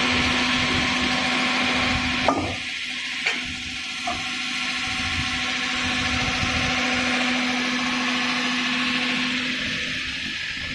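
CNC wood lathe running with a steady motor hum and the hiss of its tooling working a spinning wooden spindle. Three sharp clicks come about two, three and four seconds in, and the hiss eases after the first of them and again near the end.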